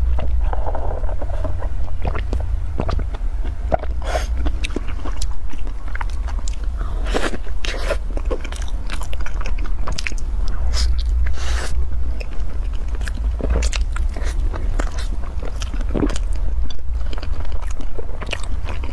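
Close-miked eating: repeated crisp crunching bites and chewing of a crumb-coated fried snack, over a steady low hum.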